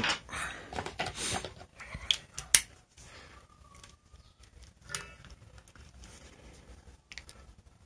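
A manual impact driver twisted and worked by hand to test its mechanism, giving handling noise and a few sharp metal clicks, busiest in the first two or three seconds, then only scattered quiet clicks.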